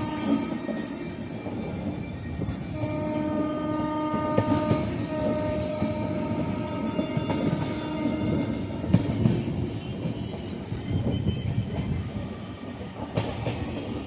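A train running along the track with a steady rumble. Its horn sounds a long blast for about five seconds, starting about three seconds in.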